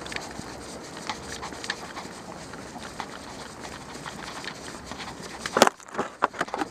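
Dog's claws and paws ticking on the paved sidewalk as it walks, picked up close by a camera riding on the dog. Near the end come a few loud, sudden bursts as the dog's nose and the camera push into a snow bank.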